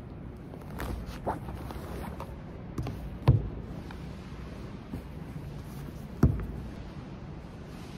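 Canvas tote bag rustling and handling noise as books are taken out and set down on a wooden table, with a few light taps and two louder knocks, about three seconds in and again about six seconds in.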